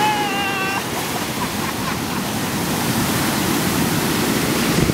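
Ocean surf: waves breaking and foaming over the shallows in a steady rush. A brief high-pitched call sounds at the very start.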